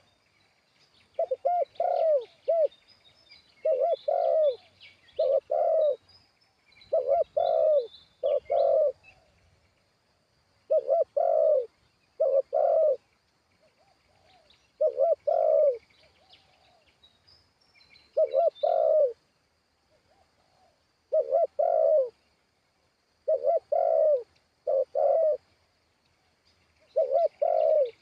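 Spotted dove cooing: short phrases of two or three low coos, repeated every two to three seconds. Faint chirps of small birds in between.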